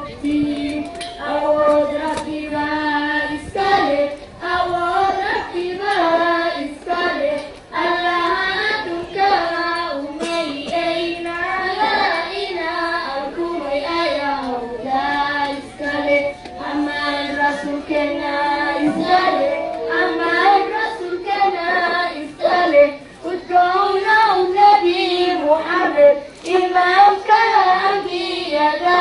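Girls' voices chanting melodically into microphones and amplified through a public-address system, with long held notes.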